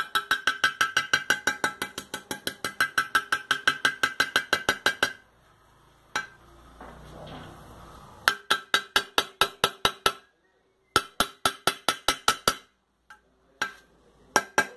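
Quick light hammer taps driving a ball bearing into its bore in a Sundown MAX 125 motorcycle engine case. The bearing is struck on the edges of its outer race, not the middle. The taps come several a second with a ringing metallic tone: a long run, then after a pause two shorter runs and a few single taps.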